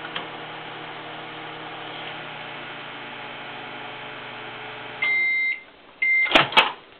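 Microwave oven running with a steady hum, which stops about five seconds in with a long beep as the 5-second cook ends. A short beep follows, then two loud sharp clicks in quick succession.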